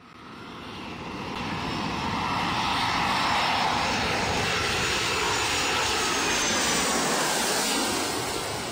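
Jet airliner engine noise of a plane passing overhead, swelling up from silence over the first few seconds, then holding loud and steady before easing slightly near the end.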